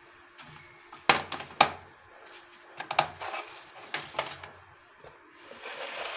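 Plastic cling film being handled and pressed over glasses, giving several sharp crackles and clicks and a soft rustling hiss near the end.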